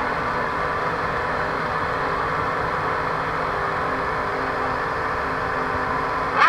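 A field of Formula 1 cars' 2.4-litre V8 engines running at steady revs on the starting grid, waiting for the start, blending into one continuous engine note.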